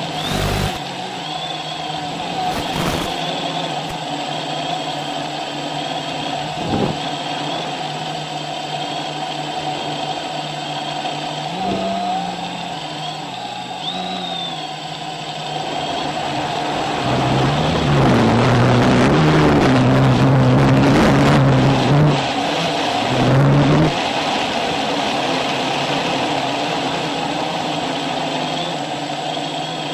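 UAVP quadcopter's electric motors and propellers whining, their tones wavering up and down in pitch; louder and rougher for several seconds from about 17 seconds in.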